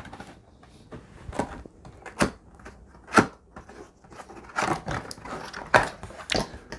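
Cardboard box being handled and opened: a few sharp knocks and taps, the loudest about three seconds in, then scraping and sliding with more taps as the inner box is drawn out of its printed outer sleeve.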